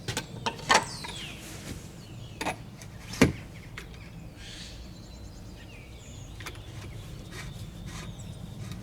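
A few sharp clicks and knocks as the bike repair clamp unit is lifted out of its wall-mounted back plate and slotted back in, the loudest about three seconds in. Birds chirp faintly over a steady background hum.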